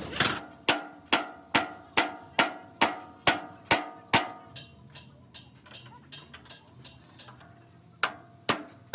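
A hammer striking steel in a steady rhythm of a little over two blows a second, each blow ringing briefly. The blows soften about halfway through, stop for a moment, then come hard again near the end.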